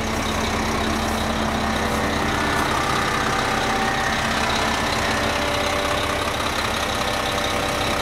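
Older Mack concrete mixer truck's diesel engine idling steadily.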